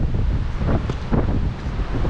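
Wind buffeting the microphone, a loud gusty rumble.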